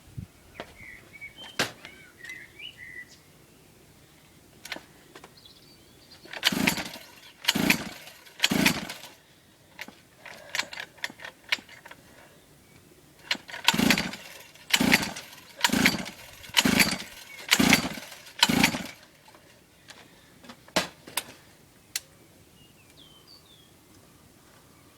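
Mini dirt bike's small engine being cranked over by hand in two rounds, three strokes and then six, about one a second, each turning over briefly without catching: the engine will not start.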